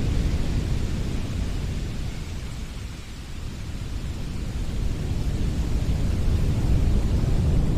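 Wind blowing in gusts, a low rushing rumble that eases off about three seconds in and builds back up.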